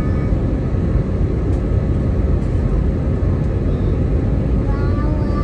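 Steady low noise inside a jet airliner's cabin in flight, from the turbofan engine and the airflow, heard from a window seat beside the engine. A faint voice comes in near the end.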